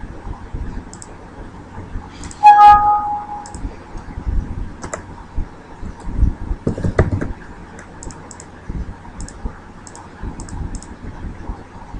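Scattered computer keyboard keystrokes and mouse clicks as a partition name is typed and a drop-down menu is clicked, with a few dull knocks. About two and a half seconds in, a short loud beep lasts about a second and is the loudest sound.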